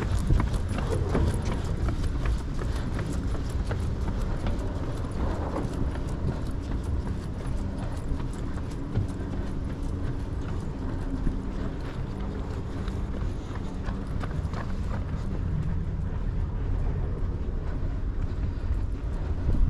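Footsteps walking on a paved concrete promenade, a steady run of steps over a low, even rumble.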